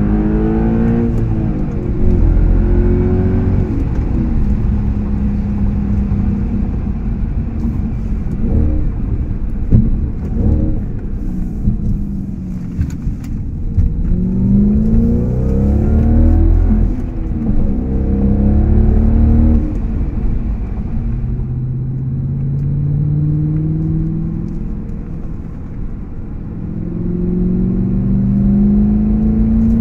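Audi S5 with an AWE Tuning aftermarket exhaust accelerating, heard from inside the cabin. The engine note climbs in pitch several times as it pulls up through the revs, with drops between pulls.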